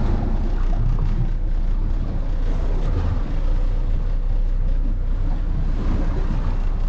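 Wind noise buffeting the microphone aboard a boat at sea, over a steady low rumble.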